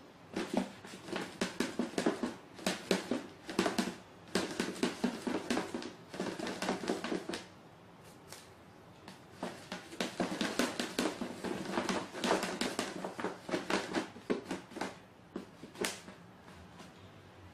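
A cat at play, making quick scratching and tapping noises, several a second, in three spells with two short pauses.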